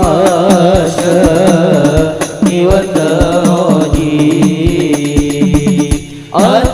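Sholawat devotional singing: a solo voice holding long, wavering notes with vibrato over a steady drum beat. The voice drops out briefly near the end and then comes back in.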